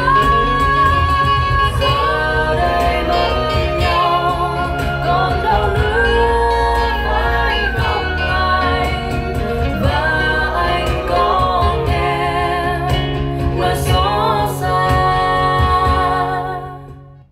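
Music: a song with a sung melody over guitar and bass accompaniment, fading out at the end.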